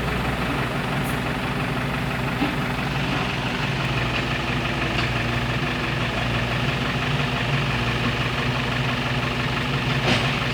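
Excavator's diesel engine running steadily at an even, low speed.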